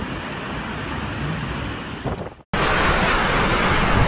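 Hurricane wind and driving rain with wind buffeting the microphone. About two and a half seconds in the sound drops out abruptly and comes back louder, a second stretch of storm wind and rain.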